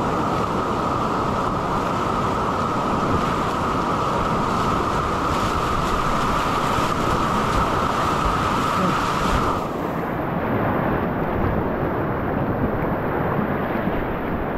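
Loud, steady rush of whitewater on a spate river. About ten seconds in it suddenly turns muffled as the higher part of the sound drops away.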